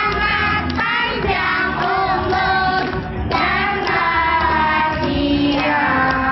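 A song with children singing over musical accompaniment, the melody moving in held notes.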